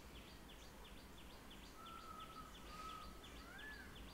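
Faint birdsong: short chirps repeated evenly about four times a second, with a held whistle in the middle and a rising-and-falling call near the end.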